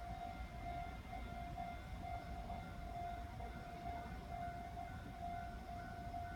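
Railway level crossing warning bell ringing, an electronic tone pulsing about twice a second, over a low rumble.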